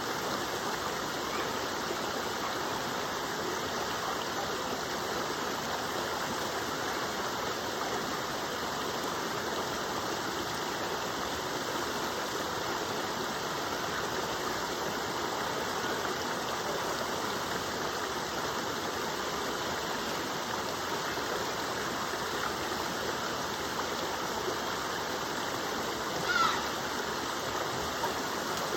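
Waterfall rushing: a steady, even noise of falling and running water. One brief, sharp sound stands out near the end.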